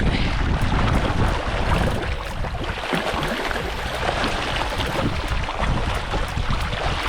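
Wind buffeting the microphone with a gusting low rumble, over the steady wash of the sea.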